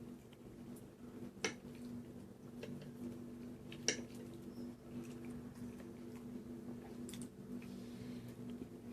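Close-up mouth sounds of chewing and eating pasta in red sauce, moist and squishy, with scattered small clicks and two sharper clicks about a second and a half and four seconds in. A steady low hum runs underneath.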